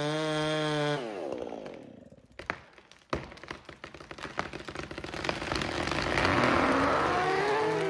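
Chainsaw running in a cut, then let off about a second in, its engine note sliding down and dropping away. Sharp cracks and snaps follow, building into a rising rushing crackle near the end as the felled tree's hinge wood breaks and the tree starts to fall.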